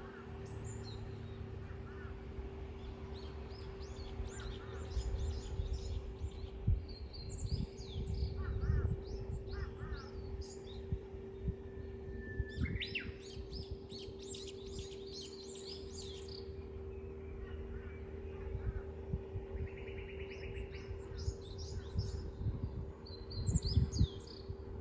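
Several wild birds chirping and trilling in short, overlapping phrases. Under them runs a steady low hum and an uneven low rumble.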